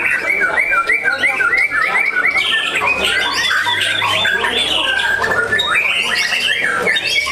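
White-rumped shama (murai batu) song at a songbird contest: a dense, unbroken run of quick, varied whistles and chirps, overlapping as if from several caged birds at once.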